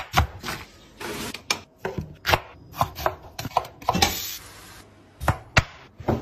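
A kitchen knife chopping vegetables on a wooden chopping board: sharp, irregular knocks one after another. About four seconds in, a brief scraping hiss as chopped vegetables are pushed off a board into a frying pan.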